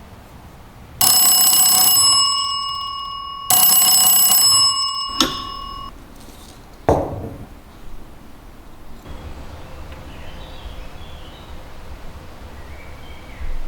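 Old telephone's electromechanical bell ringing in two bursts of about a second each, the clapper striking rapidly, each ring fading away. Then come two sharp knocks.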